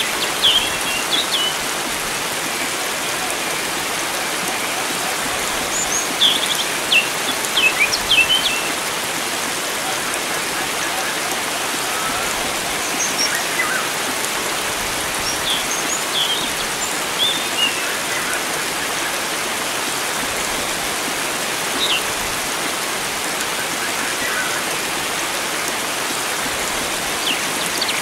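Steady rush of flowing water, with wild birds chirping in short, quick bursts now and then, most busily a few seconds in and again around the middle.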